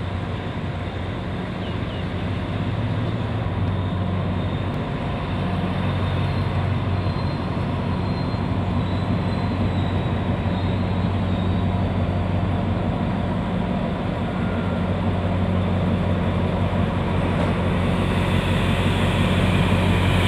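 Alsthom AHK diesel-electric locomotive 4218 running as it approaches at the head of a passenger train. Its engine gives a steady low hum that grows gradually louder.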